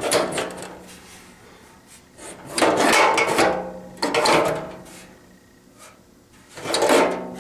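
Gear-shift lever of a garden tractor, fitted with a piston shift knob, being worked through a newly made shift gate: four scraping, rubbing shifts, one of them longer, a second or two apart.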